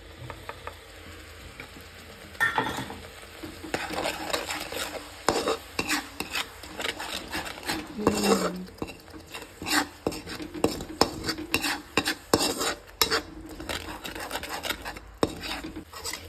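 Perforated steel skimmer spoon stirring and scraping tomato-and-onion masala in a frying pan, with irregular clinks and scrapes of metal on the pan over the sizzle of the frying paste. The stirring strokes start about two and a half seconds in.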